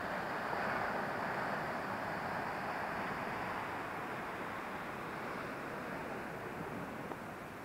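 Sea surf washing against a rocky basalt shore: a steady rushing noise, loudest about a second in, then slowly easing off.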